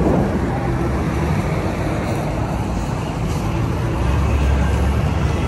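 City street traffic: motor vehicle engines running, with a low engine rumble growing louder about four seconds in.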